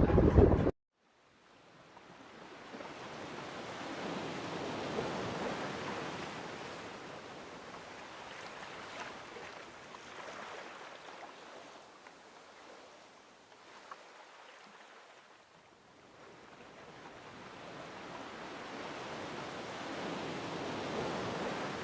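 Sea waves washing against a sea wall: a steady rushing noise that swells and fades slowly over many seconds. It opens with under a second of a louder sound that cuts off abruptly.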